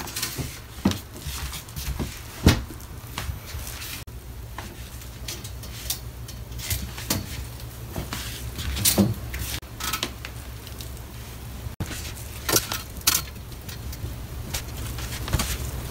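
Laundry being hung on a metal drying rack: scattered clacks and knocks of hangers against the rack frame, with fabric rustling, over a steady low hum. The sharpest knock comes about two and a half seconds in.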